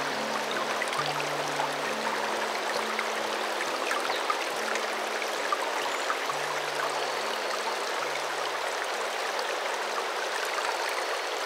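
Steady rush of river water, an even hiss with no pauses, with soft low background music notes underneath that stop about three quarters of the way through.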